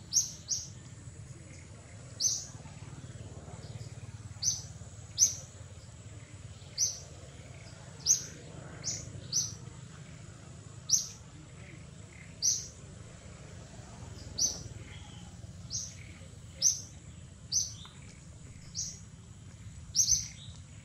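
A bird calling: short, sharp, high chirps that drop quickly in pitch, repeated irregularly about once a second, over a faint steady high tone.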